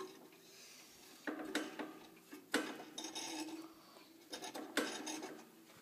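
Handling noise from the wooden case of an IBM master time clock: three bouts of clicks and rattling, each trailing into a brief ringing tone.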